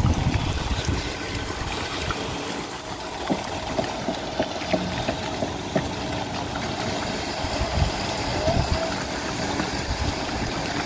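A motor running steadily, with water rushing and splashing.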